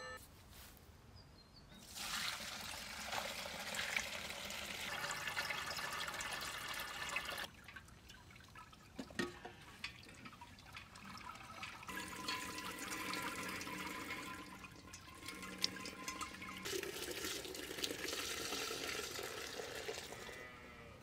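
Dye liquid pouring and splashing in stretches of a few seconds, with quieter gaps and a few clicks between them. Near the end the dye bath is poured from a pot into a large steel stock pot.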